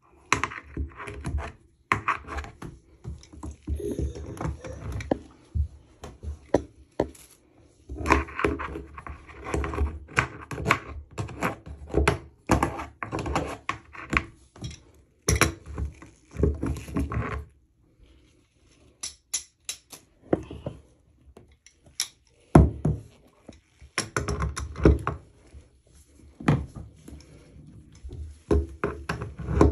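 Metal screwdriver scraping and knocking inside a bathtub's metal drain, fishing out clumps of hair that clog it: a run of irregular clicks and scrapes.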